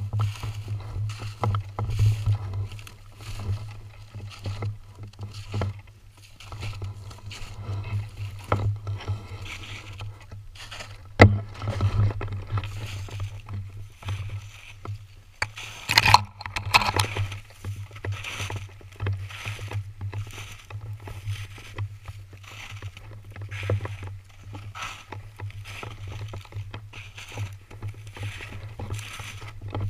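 Footsteps crunching through snow and dry grass, with grass and brush rustling against clothing, over a low steady rumble. There is a sharp knock about eleven seconds in and a louder rustle a few seconds later.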